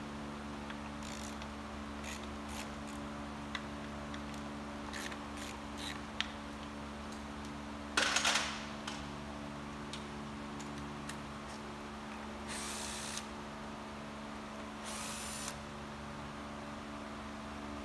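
Hand tools working on top of a removed car engine: scattered metallic clicks and clinks, a louder clatter about eight seconds in, and two short ratcheting bursts near the end.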